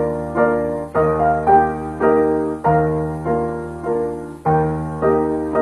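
Piano music: chords struck about every half second, each fading away before the next.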